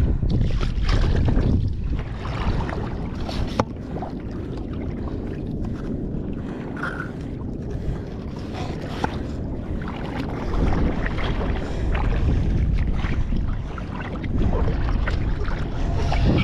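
Wind rumbling on the microphone outdoors, stronger near the start and again near the end, with small scattered clicks and knocks.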